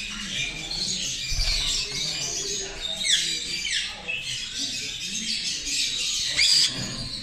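Many caged birds chirping and calling at once in a dense, continuous chorus, with a few louder downward-sweeping calls standing out about three seconds in and again near the end.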